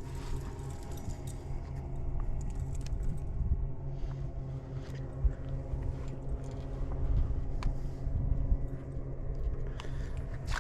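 Steady low hum of a boat motor running, with scattered small clicks and rattles.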